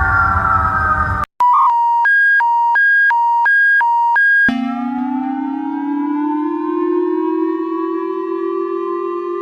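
Emergency alert alarm tones: a falling tone that cuts off just over a second in, then a rapid alternating high-low two-tone beep for about three seconds, then a slowly rising siren wail like a civil defense siren winding up.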